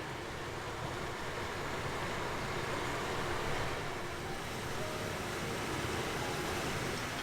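Steady rushing of a stream flowing over rocks, an even roar of water with no breaks.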